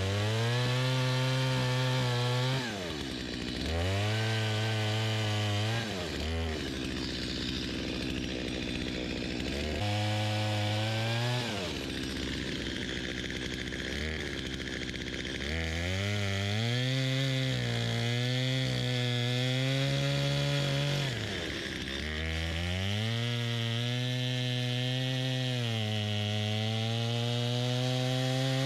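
Chainsaw cutting through a fallen hemlock trunk. The engine runs at high speed in the cut, and its pitch drops and picks up again about five times as the throttle is eased off and squeezed again.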